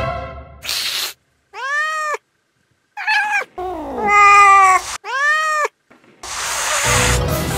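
Cat meows, several drawn-out calls one after another, each rising then falling in pitch, laid on as the voice of a zombie-cat puppet. A short hiss comes just before them.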